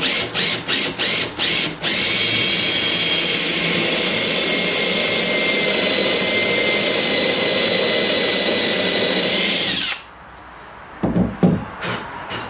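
Cordless drill boring a screw hole down into the top of a wooden thwart knee: a few short trigger pulses, then a steady high-pitched run of about eight seconds that cuts off suddenly, followed by a couple of light knocks.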